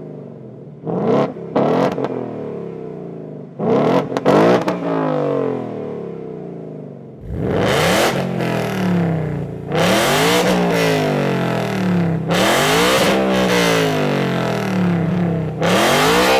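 2018 Ford Mustang GT's 5.0 L V8 on long tube headers and the stock active exhaust in track mode, valves open. It idles with a few quick throttle blips, then from about seven seconds in it is revved hard several times, each rev rising and falling back.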